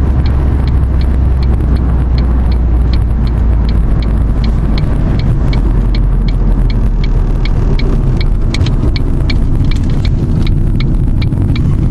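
Car driving, with a steady low road-and-engine rumble and a light, even ticking about three times a second.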